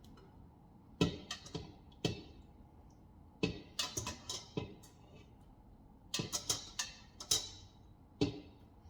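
A utensil clinking and knocking against the Instant Pot's inner pot as tender lamb chops are lifted out: about a dozen sharp, irregular clinks, some in quick clusters.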